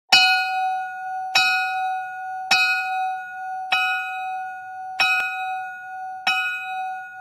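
A bell struck six times at an even pace, about one strike every 1.2 seconds, each ringing the same note and fading before the next.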